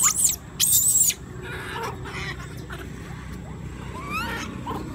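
Infant macaques squealing: two loud, very high-pitched screeches in the first second, then softer rising squeaks about four seconds in.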